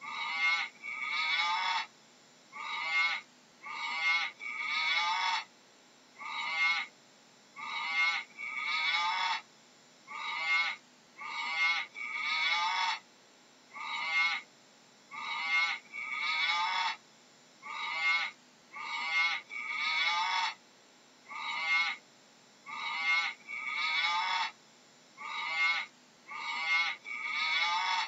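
Animal calls repeating in a steady pattern, each pair a short call followed by a longer one, about every two seconds.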